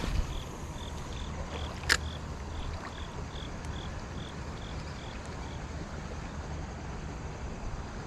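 Spinning-reel cast and retrieve beside a flowing creek: a sharp click about two seconds in, then faint, even high ticks about three a second for several seconds, over a steady low rush of running water.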